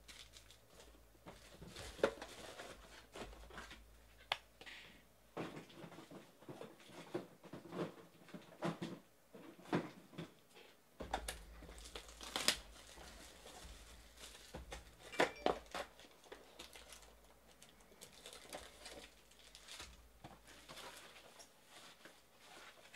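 Foil-wrapped 2018 Panini Phoenix football card packs being handled, taken out of their cardboard hobby boxes and stacked on a table: irregular crinkling and rustling with scattered sharp taps and clicks.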